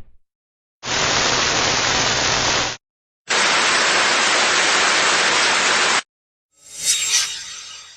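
Television static sound effects: a burst of bad-TV hiss with a low hum under it, about two seconds long, then a longer burst of plain TV static, each cut off abruptly. Near the end a short whoosh swells in.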